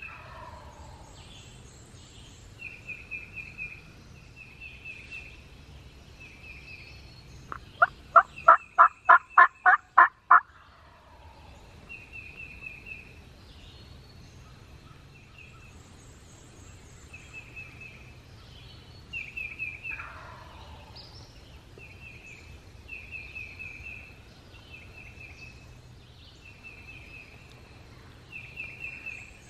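Turkey calling: a loud run of about ten yelping notes, about four a second, near the middle. Small birds sing short repeated phrases throughout.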